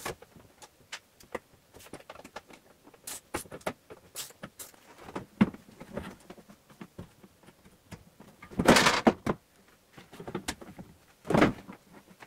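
Plastic cover and housing of a print processor being handled and lifted off: scattered light clicks and knocks, with a louder, longer clatter about nine seconds in and another knock near the end.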